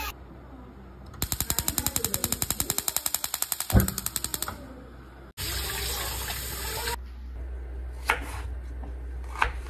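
Gas stove burner's electric igniter clicking rapidly, about nine clicks a second, with a low whump as the burner catches under a steel pot. Then tap water runs over green beans in a steel colander, followed by two light knocks near the end.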